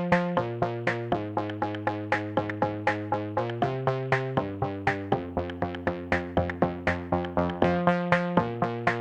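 Electronic instrumental music: short synthesizer chords struck about four times a second, with the harmony changing every second or two.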